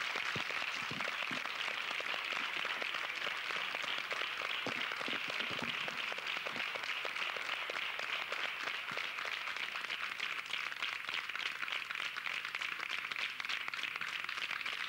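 Studio applause: many people clapping in a steady, dense patter that holds at an even level throughout.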